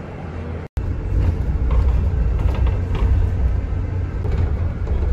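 Steady low rumble of a moving vehicle, with a few faint clicks and rattles, cutting in abruptly less than a second in.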